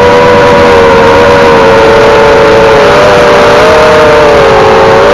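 Eachine Wizard X220 quadcopter's four brushless motors spinning Racerstar 5048 propellers, heard through its onboard camera: a loud whine of several close tones beating together over a rushing hiss. The pitch dips and rises a little past the middle as the throttle changes.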